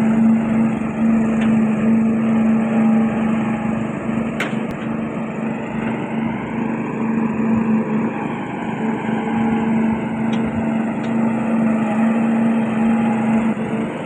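Engine-driven concrete-pouring machinery running steadily with a constant droning hum, with a few faint clicks or knocks.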